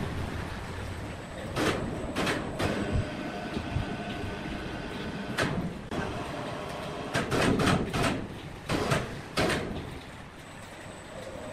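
Large timber log being rolled over on a sawmill carriage: irregular heavy wooden and metal knocks and clunks over a steady machinery hum, with a burst of knocks about seven to nine seconds in.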